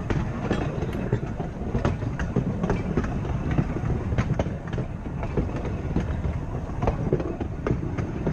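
Blackpool 'Boat' open-top tram 606 running along the track: a steady rumble from the wheels and running gear, with frequent irregular clicks and knocks from the wheels on the rails.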